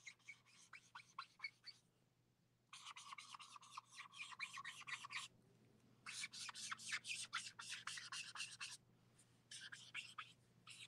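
Faint scratching of a felt-tip brush marker drawn across paper in quick, short strokes, tracing small scalloped curves. It comes in four runs of a second or a few seconds each, with short pauses between.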